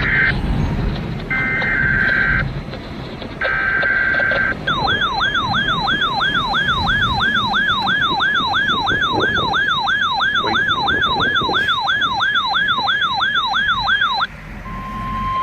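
Emergency Alert System broadcast on NOAA Weather Radio: three short bursts of digital SAME header data, then an electronic siren-like alarm yelping about three times a second for about nine seconds, then a brief steady tone near the end. Together they announce a new severe thunderstorm warning.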